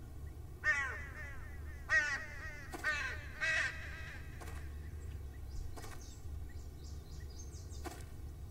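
A crow cawing four times in the first few seconds, harsh calls that fall in pitch, over a steady low rumble.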